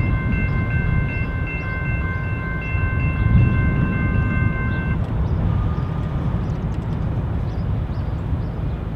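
Railroad grade-crossing bell ringing steadily, then stopping about five seconds in, over a steady low rumble of the train. A fainter on-off beep follows.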